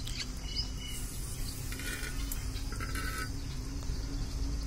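Outdoor ambience: a few bird calls, two similar ones about a second apart in the middle, over a steady low rumble.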